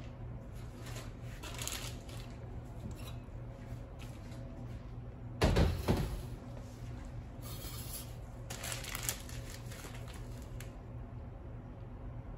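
Work sounds from cake decorating: brief scraping and rustling, with one heavy thud of something set down or knocked about five and a half seconds in, over a steady low hum.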